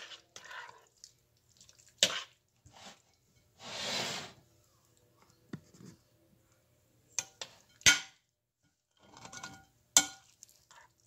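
A spoon stirring thick baked beans in a glass mixing bowl: irregular scraping with several sharp clinks of the spoon against the glass, the loudest near the end. There is a brief rush of noise about four seconds in.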